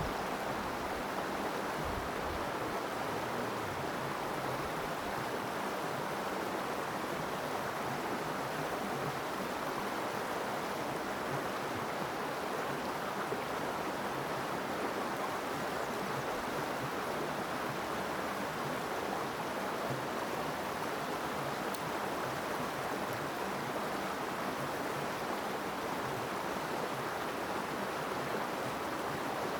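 Small mountain creek running, a steady rush of water.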